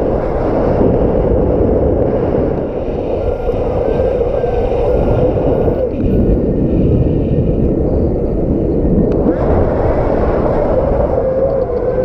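Strong wind gusting and buffeting the microphone, a loud, continuous low rumble.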